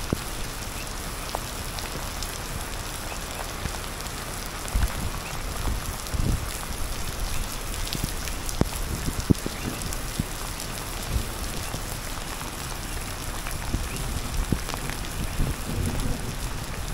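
Steady rain falling on a wet street, an even hiss with occasional sharp ticks and a few low thumps.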